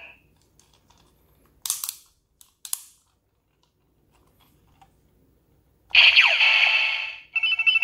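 DX Fourze Ridewatch toy: two sharp plastic clicks about a second apart as its face cover is turned. About six seconds in, its top button is pressed and the toy's speaker plays a loud electronic sound effect with sweeping tones, which runs into a beeping jingle near the end.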